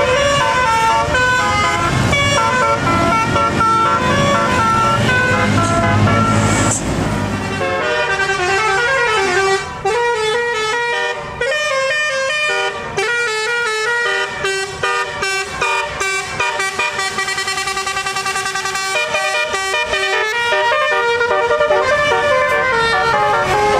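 Bus 'telolet basuri' musical horn playing a fast tune of short stepping notes. A low rumble runs under the first seven seconds or so, then drops away, leaving the horn tune alone.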